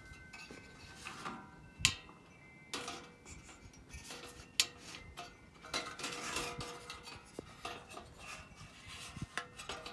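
Clicks and light metallic clatter of a camp stove's fold-out feet being swung open and handled, with a few sharp knocks, the loudest about two seconds in and about four and a half seconds in.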